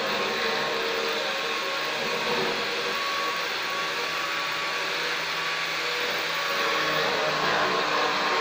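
Handheld angle grinder with a disc pad running steadily against the edge of a granite slab: a constant motor whine with grinding hiss as the edge is finished.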